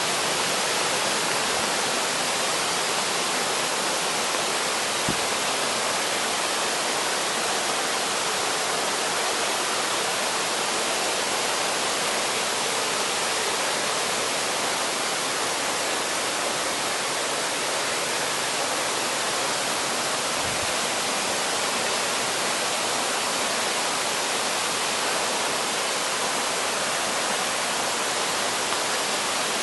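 Mountain stream water rushing and splashing steadily over rocks, an even full rushing sound.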